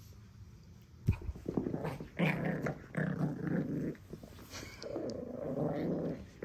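Pekingese puppy growling in two long bouts as it play-fights over its plush monkey toy, after a single thump about a second in.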